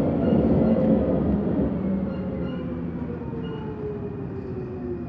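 Munich U-Bahn Type C train braking into a station, heard from inside the car: a rumble of wheels on rails under a whine from the electric drive that falls steadily in pitch as the train slows.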